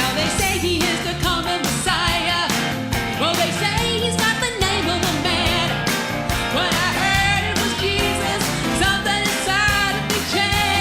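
Vocal group singing a Christmas song, several voices with vibrato over a band accompaniment with a steady drum beat.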